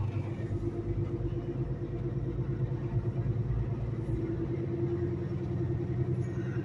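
Semi truck's diesel engine running steadily at low speed during a slow turn, heard from inside the cab as a low, even hum.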